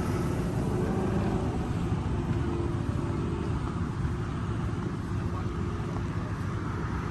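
Steady road traffic noise: cars running and passing by on the street.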